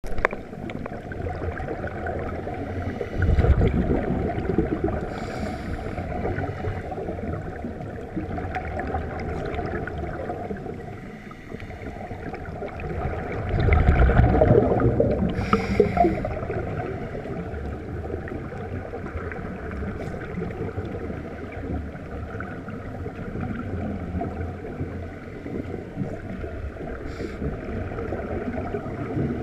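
Muffled underwater rumble and hiss, with louder surges of a scuba diver's exhaled bubbles from the regulator, about three and a half seconds in and again around fourteen seconds in.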